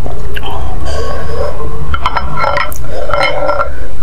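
Close-miked eating sounds of spicy instant noodles: wet mouth and throat sounds of chewing and swallowing, with sharp clicks of a wooden spoon and chopsticks against the ceramic bowl.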